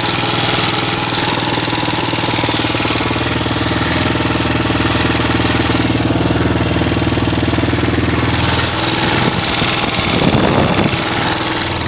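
Roketa ATV engine running with a rapid tapping and rattling, which the owner says keeps getting louder as the machine is ridden and is not normal for a new ATV. The engine note changes briefly about nine seconds in.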